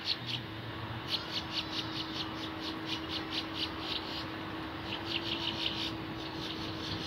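Rhythmic high chirping from a small animal, about four or five chirps a second in runs of a few seconds with short pauses between them. Under it is a steady low hum from the taxiing airliner's idling jet engines.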